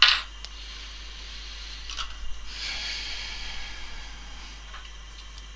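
Small parts and plastic film being handled on a paper-covered bench during a phone screen replacement. A sharp brief hiss comes at the start, then a couple of light clicks and a soft rustling rub for about two seconds.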